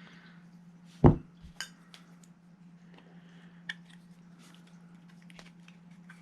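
Small metal parts of an airsoft rifle's trigger group clinking and clicking as a pin is worked into the lower receiver by hand, with one dull knock about a second in, over a steady low hum.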